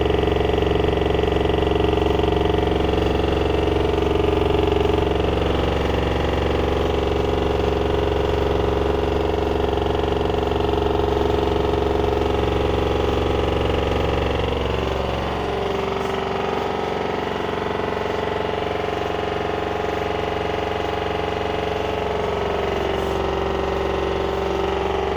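LG washer dryer combo on a high-speed spin, a loud steady machine noise that sounds like a jack hammer at 1400 spin. About fifteen seconds in the deep hum drops away and the pitch shifts slightly, then the spin runs on steadily. The cause is unexplained: the machine is level, nothing is touching it and the drum bearing has no play.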